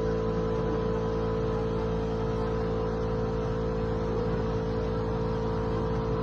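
A machine's motor running steadily under load, with a strong constant whine over a low rumble.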